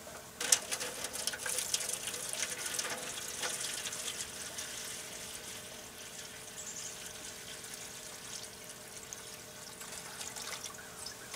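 Water poured from a glass pitcher into an aluminium drip pan, splashing and trickling: filling the drip pan with water. The pour is fullest in the first few seconds and thins to a lighter trickle later on.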